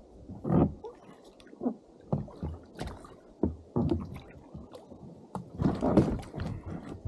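Paddle strokes and water sloshing and gurgling against a stand-up paddleboard's hull, with a few sharp knocks in between; the loudest splashes come about half a second in and again near six seconds.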